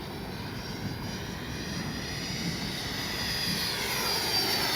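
Whine of the FMS Integral 80mm electric ducted-fan jet in flight, its 12-blade fan spun by an inrunner electric motor, growing steadily louder as the jet comes closer, with the pitch dipping slightly near the end.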